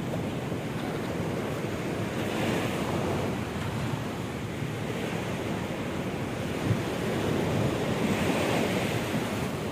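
Steady rushing noise of wind on the microphone and nearby water, swelling about two and a half seconds in and again near the end.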